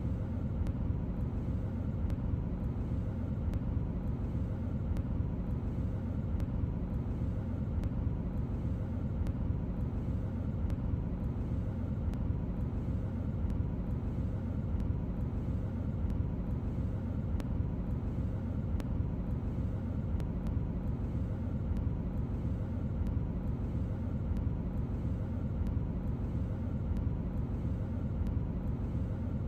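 A car driving: a steady low rumble of road and engine noise, unchanging throughout.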